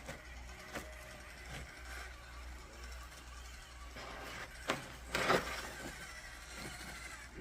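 Radio-controlled truck on a Punishment RC chassis crawling over obstacles: a faint electric motor whir with a couple of small knocks, and a louder scraping burst about five seconds in.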